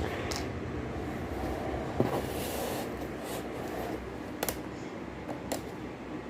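A few small sharp clicks and taps from handling and prying at a laptop's plastic case, over a steady background hum.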